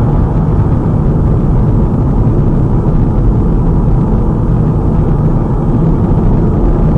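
Steady low rumble of a car driving at highway speed, tyre and engine noise heard from inside the cabin.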